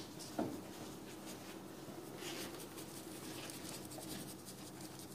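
Small paintbrush dabbing and scrubbing paint through a plastic stencil sheet onto wood: a run of light, quick scratchy strokes, with one sharper tap near the start.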